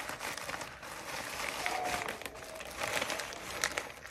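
Thin plastic poly mailer crinkling and rustling as it is handled and pulled open, with many quick crackles.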